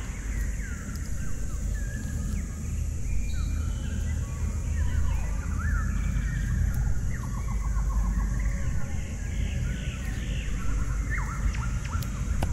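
Outdoor ambience of many birds chirping and trilling in short rising and falling calls, over a steady high hiss and a low rumble.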